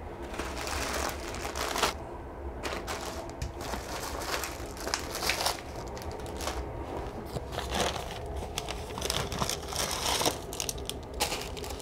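Plastic carrier bag and plastic food packaging rustling and crinkling irregularly as hands rummage through a bag of groceries, over a low steady rumble of a moving train.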